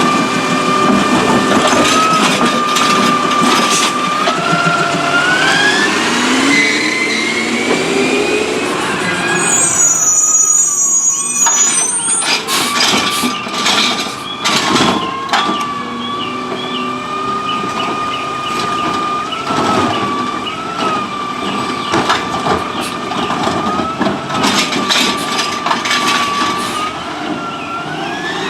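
Autocar ACX Heil Rapid Rail side-loader garbage truck at work, giving off a loud, steady high whine at idle that rises in pitch and falls back several times as the truck revs. Clanks and knocks from the arm and carts run through it, with a short hiss about ten seconds in.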